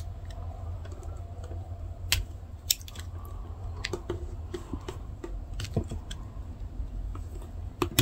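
Scattered light metal clicks and scrapes as the crimped-on metal scales of a slipjoint pocketknife are pried loose with a pick, over a low steady hum.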